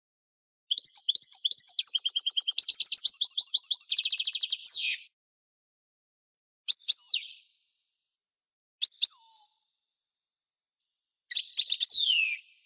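European goldfinch singing: a fast, twittering song phrase of about four seconds, followed by three short bursts of calls, each with a falling note, a couple of seconds apart.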